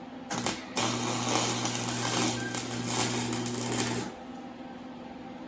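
Wire-feed (MIG) welder arc crackling on exhaust pipe steel: a brief tack, then a steady bead of about three seconds that stops sharply, with the welder's electrical hum underneath.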